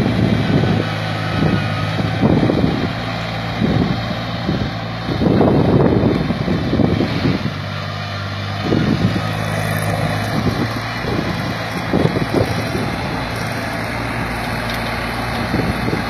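Compact tractor's diesel engine running at a steady pitch as it pulls a disc plough through the soil, with irregular louder bursts of wind buffeting the microphone.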